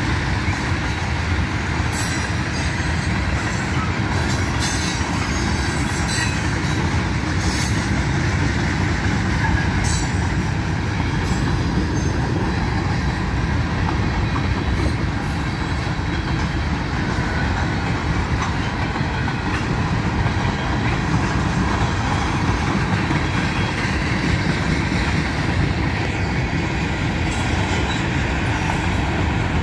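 Union Pacific manifest freight train's cars rolling past: a steady loud rumble and clatter of steel wheels on rail, with occasional sharp clicks.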